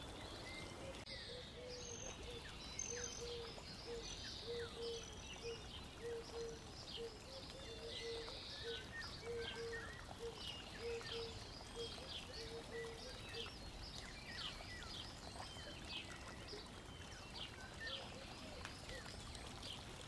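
Faint birdsong: many short high chirps throughout, with a short low note repeated about twice a second for roughly the first dozen seconds, over a faint steady hiss.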